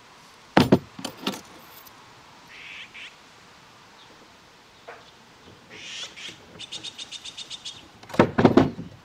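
Sharp knocks and small metallic clicks from a brass drawer pull being fitted to a wooden drawer front, ending in a loud cluster of rattles and knocks as the handle is set in place. In the background a bird chirps, then gives a rapid, even trill of about ten notes a second.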